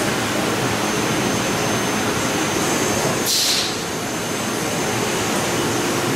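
Mazak Super Turbo X44 CNC laser cutter running: a steady rushing machine noise with a faint high whine, and a short hiss about three seconds in.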